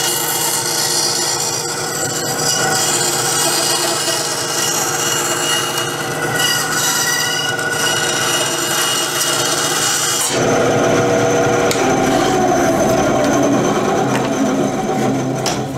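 Ryobi 9-inch band saw running, its blade cutting a curve through half-inch plywood with a steady hiss over the motor's hum. About ten seconds in the cutting hiss stops and the saw runs on free with a lower hum, fading near the end.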